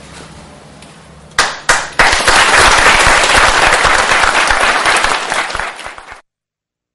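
Audience applauding: a couple of separate claps about a second and a half in, then steady applause that cuts off suddenly near the end.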